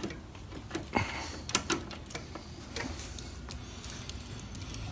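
Light metallic clicks and knocks of hand tools and parts being handled during shock installation on a motorcycle, a few separate taps about half a second to a second apart, over a low steady hum.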